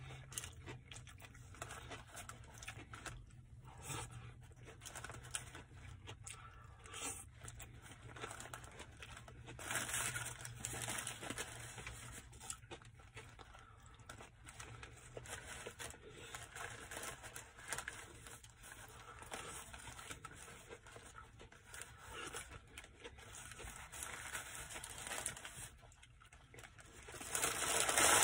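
Paper sandwich wrapper crinkling and rustling in bursts as it is handled while eating a sub sandwich, louder near the end. Soft chewing sounds come in between.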